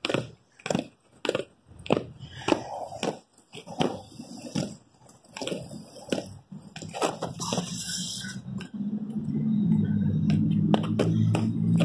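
Quad roller skate wheels rolling over a concrete sidewalk, clicking over the joints about twice a second. Near the end this turns into a louder, steady rumble.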